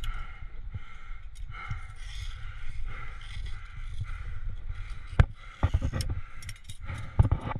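Climbing gear being handled in a sandstone crack: a cam being placed and the rope clipped into its carabiner, with scraping against the rock and several sharp metallic clicks about five to seven seconds in, under a steady low rumble.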